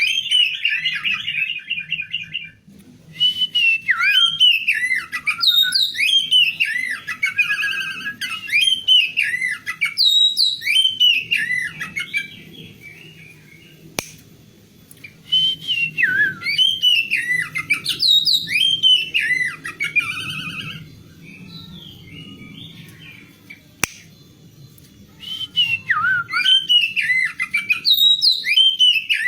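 Female oriental magpie-robin calling in bouts of rapid buzzy chatter mixed with short whistles that sweep downward, with a couple of quieter pauses, over a faint steady low hum.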